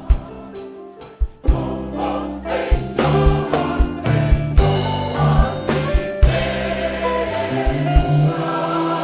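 Choir singing a gospel song with instrumental accompaniment and a steady beat, growing louder about three seconds in.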